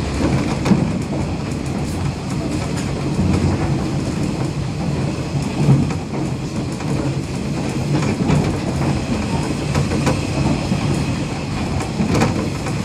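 Passenger train running along the line, heard from inside the car: a steady rumble of wheels on rail with a few scattered clicks.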